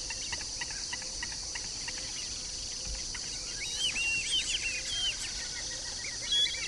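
White-faced whistling ducks giving short, high whistled calls, a flurry of them about halfway through. A steady high insect chorus runs underneath.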